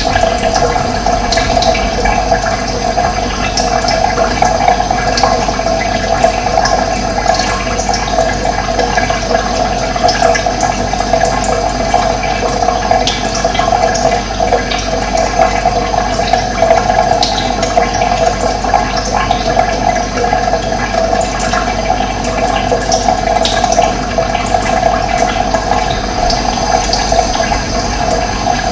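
Running water rushing and gurgling steadily, with faint short high chirps now and then.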